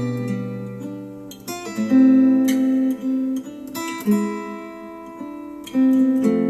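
Acoustic guitar music, plucked and strummed chords, played back through Cambridge Audio SX50 bookshelf speakers driven by a NAD C 338 integrated amplifier.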